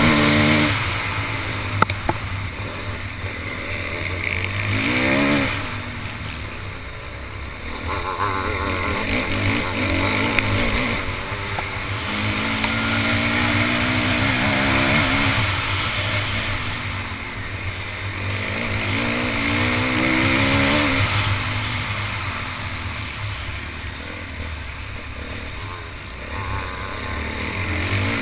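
Motocross bike engine heard up close from the bike itself, revving up and dropping back again and again as the rider accelerates and shifts gears on a rough dirt track. There is a sharp knock about two seconds in.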